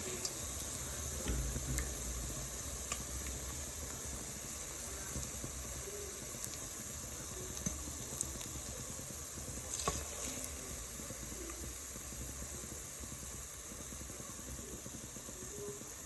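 Ripe plantain slices frying in hot oil in a saucepan: a steady sizzling hiss, with a few light clicks of a utensil against the pan.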